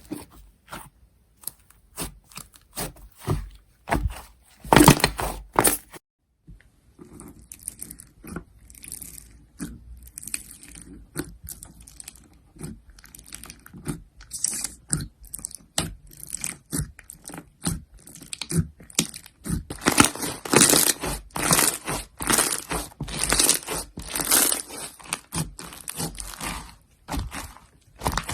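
Slime being squeezed, poked and stretched by hand, giving quick irregular clicks and pops. There is a short break about six seconds in, and the handling grows denser and louder in the last third.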